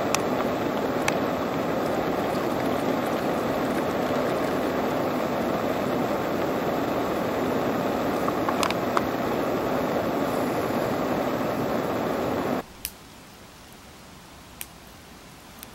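Steady trickling of filtered water from a squeeze-pouch water filter into a plastic bottle. It cuts off sharply near the end, leaving a low campfire background with a few sharp crackles.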